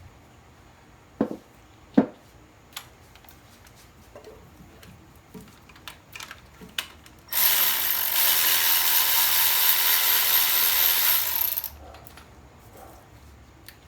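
Socket ratchet wrench spinning fast with a dense ratcheting rattle for about four seconds, backing out a bolt. Before it come a couple of sharp metal clicks and a few lighter taps of tools.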